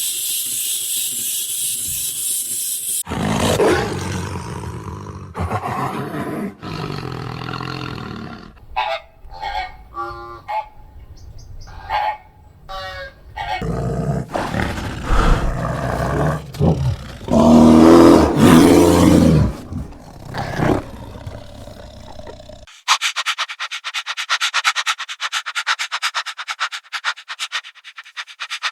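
A run of different young animals' calls one after another: rough calls, a cluster of short high calls, then a long loud growling roar, and near the end a rapid rasping rhythm of many strokes a second.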